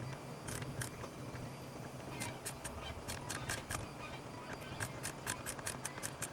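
Quick, light clicks and ticks of hand tools and the plastic and metal parts of a Philips GC8616 steam iron being handled while its boiler is unscrewed and taken out. The clicks come in short clusters, most densely in the second half.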